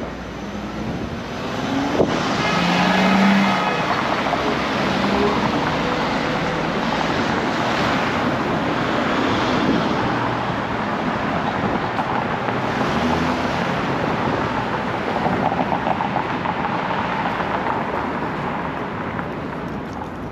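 City street traffic: cars passing steadily on the road alongside, with wind on the microphone and a sharp click about two seconds in.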